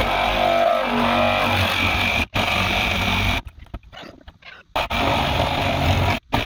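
Handheld power saw cutting through the wall of a plastic barrel. Its loud motor runs with a wavering pitch, stops for about a second midway, then cuts again.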